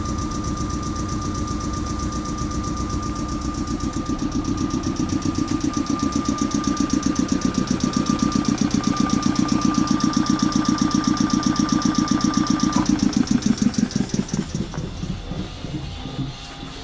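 Fast, even chugging from a Choshi Electric Railway train's machinery, with a thin steady whine above it. The chugging grows louder, then slows and dies away about thirteen seconds in as the machine shuts off.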